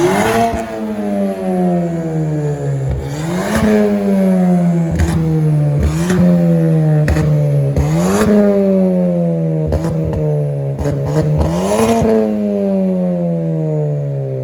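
Ford Fiesta ST's 1.6-litre turbocharged four-cylinder revved through a loud aftermarket KMS Hurricane twin-exit exhaust, four quick blips each falling slowly back, with sharp pops and crackles as the revs drop. Echoing under a bridge.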